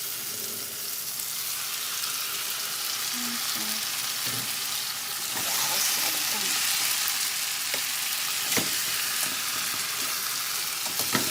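Sautéed tomato, onion and garlic sizzling in a hot frying pan, the sizzle growing louder about halfway through as the fish goes in. A few sharp knocks of a cooking utensil against the pan come near the end.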